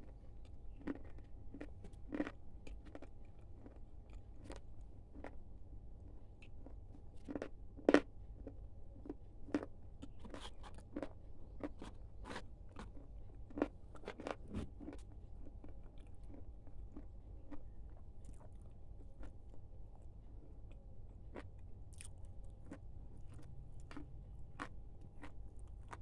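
A person chewing Kurkure corn puffs with the mouth close to the mic: irregular crisp crunches and crackles. They come thickest in the middle, the loudest about 8 seconds in, then thin to occasional crunches. A faint steady hum runs underneath.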